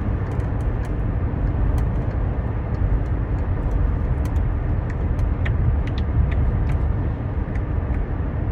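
Silicone pop-it fidget bubbles being pressed one after another, a string of small sharp pops. A steady low rumble runs underneath.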